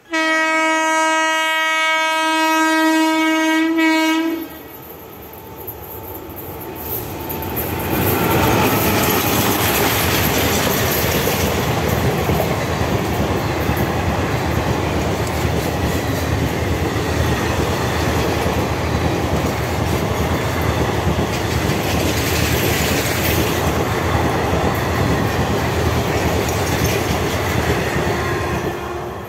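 WAP4 electric locomotive's horn sounding one long, steady blast that cuts off after about four seconds. The Intercity Superfast Express then comes up and runs through at speed, its coaches' wheels clattering rhythmically over the rails, easing off near the end.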